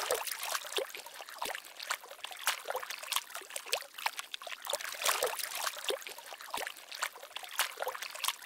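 Shallow floodwater splashing and sloshing in many irregular splashes as a dog wades through it.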